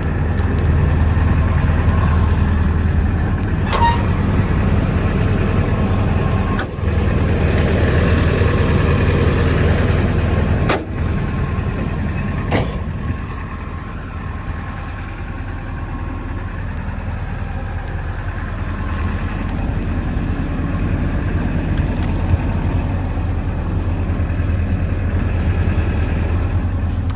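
Diesel engine of a Hitachi Zaxis 210 LC-6 track excavator idling steadily, with a few sharp clicks or knocks.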